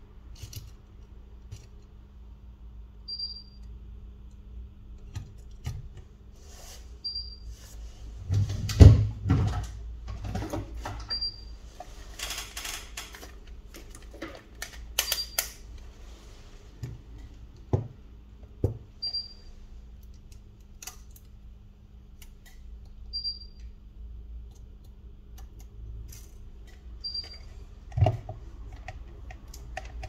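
Small clicks and taps of tools and parts being handled on a repair bench, over a steady low hum, with a short high beep about every four seconds. A heavier knock comes about nine seconds in.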